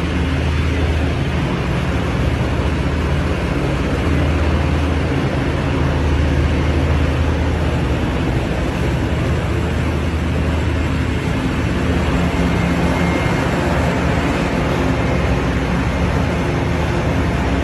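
Heavy mining machinery running: a steady, loud, low engine drone with a constant hum.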